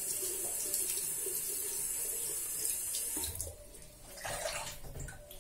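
Water running from a tap into a sink, a safety razor rinsed under it, with a steady hiss that stops about three and a half seconds in. A few brief handling noises follow.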